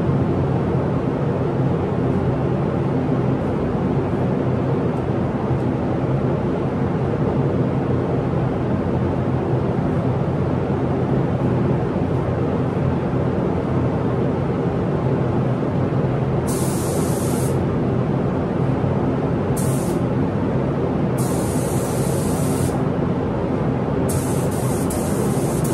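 Steady rush and hum of paint-booth airflow, with a gravity-feed air spray gun hissing in four separate bursts in the last third as the painter triggers it on and off, spraying paint.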